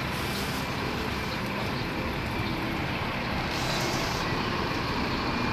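Steady city road traffic noise from double-decker buses and cars, with a brief hiss about three and a half seconds in.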